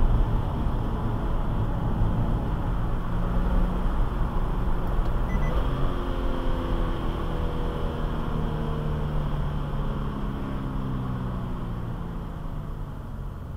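Car interior road and engine noise picked up by a dash camera: a steady low rumble that eases off over the last few seconds as the car slows.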